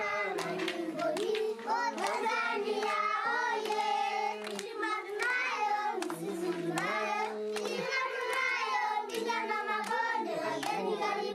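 A group of children singing together, with hand claps.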